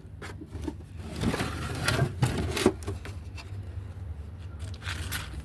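Scattered knocks, clacks and scrapes of objects being handled, most frequent about a second to three seconds in, over a steady low hum.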